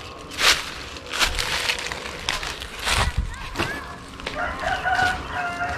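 Rooster crowing from about four seconds in. Before it come scattered rustles and crunches in dry leaf litter.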